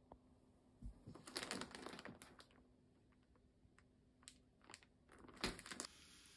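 Clear plastic bread bag crinkling and rustling as it is handled, with scattered small clicks and a louder crinkle a little before the end.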